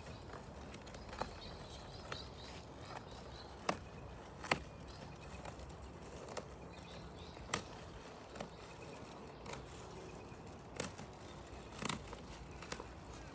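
Scattered light knocks and clicks at irregular intervals over a steady hiss: handling noises of unpacking, with the sharpest knocks about four and a half and seven and a half seconds in.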